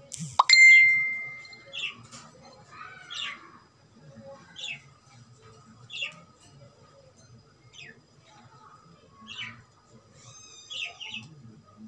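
Cockatiel giving short, repeated chirps about every second or so. Near the start there is one loud, sharp ringing tone that fades over about a second and a half.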